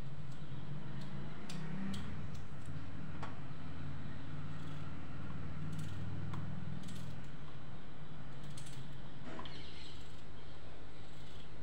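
Small knife cutting raw potato into strips in the hand, with scattered light clicks and taps at irregular intervals as it cuts and pieces drop onto a steel plate. A steady low hum runs underneath.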